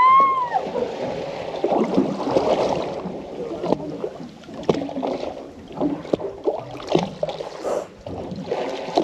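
Water sloshing and splashing in irregular small slaps and gurgles.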